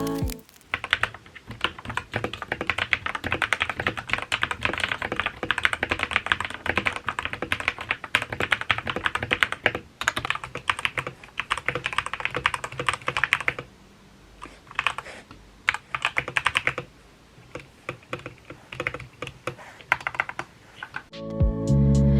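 Typing on a TM860 mechanical keyboard fitted with lubed Outemu Panda tactile switches: a fast, continuous patter of keystrokes with brief pauses about ten and fourteen seconds in, then sparser bursts of keystrokes near the end.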